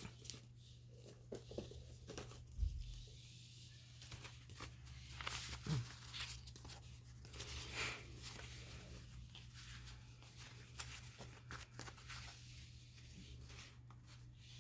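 Pieces of paper and card being sorted and handled: scattered faint rustles and crinkles with short pauses between them.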